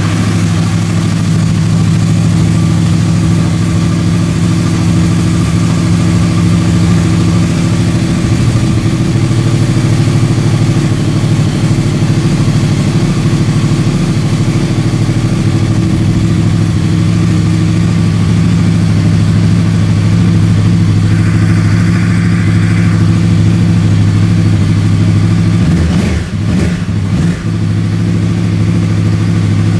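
2009 Yamaha YZF-R1's crossplane-crank inline-four idling steadily through freshly fitted Akrapovič dual carbon-fibre slip-on mufflers, just after starting, with a pronounced V-twin-like sound. The level dips briefly about 26 seconds in.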